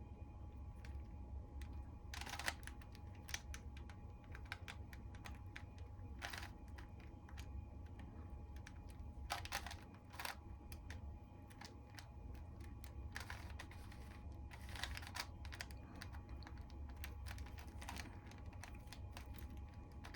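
Plastic Rubik's Cube being twisted by hand: its layers click and clatter in short irregular runs of turns, with pauses between. The runs come about two seconds in, around six seconds, around nine to ten seconds, and again from about thirteen to fifteen seconds.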